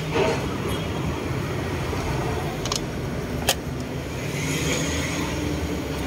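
Toyota Wigo's three-cylinder engine idling with a steady low hum, misfiring on cylinder 2 because the wire to that cylinder's injector is cut. Two short sharp clicks sound near the middle.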